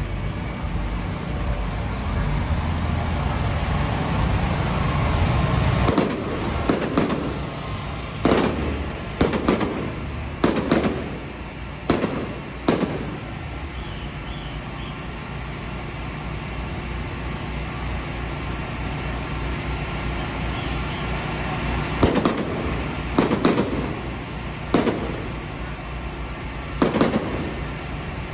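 Firecrackers going off in scattered bursts of sharp bangs, some in quick clusters, with a gap of about ten seconds in the middle. Under the first few seconds a vehicle engine runs with a low rumble that drops away about six seconds in.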